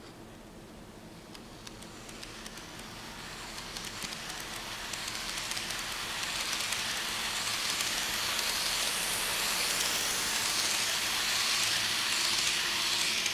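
Kato N-scale E233 model train running along the track, a steady high hiss with faint clicking of the wheels, growing louder as it approaches and passes.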